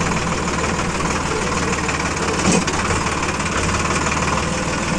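A 42 HP farm tractor's diesel engine runs steadily close to the microphone as the tractor is driven, with one brief louder knock about halfway through.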